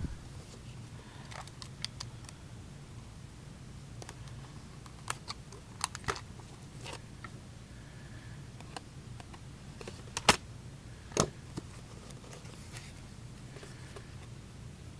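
A sealed hockey card box being opened and the cards handled: scattered sharp clicks and snaps, the two loudest about ten and eleven seconds in, over a low steady hum.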